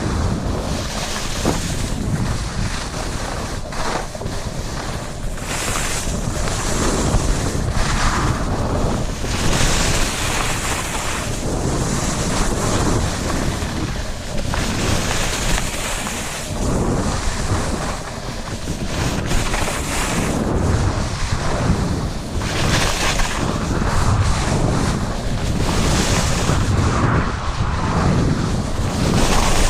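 Wind buffeting the microphone, mixed with the hiss and scrape of snow under a downhill ski descent, swelling and easing every few seconds with the turns.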